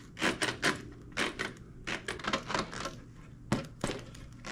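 Push-on rubber handlebar grip being twisted and shoved onto a bar wet with glass cleaner, rubbing and squeaking in short strokes a few times a second, with two sharp taps about three and a half seconds in.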